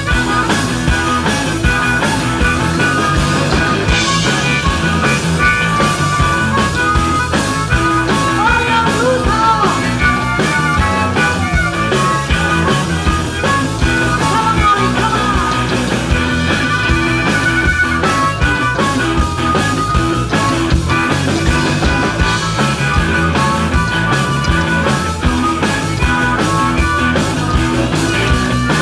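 Live blues-rock band playing, with a harmonica cupped against the vocal microphone taking the lead over electric guitar and bass. The harmonica's notes bend up and down around the middle.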